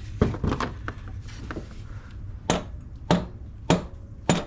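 Hammer blows knocking a driveshaft into the transmission to force its compressed retaining clip past the groove: a few lighter knocks near the start, then evenly spaced hard blows a little over half a second apart from about halfway through.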